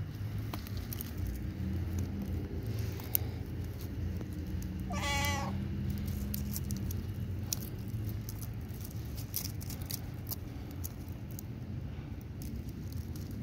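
Black cat giving one short meow, rising slightly in pitch, about five seconds in, with scattered faint clicks around it.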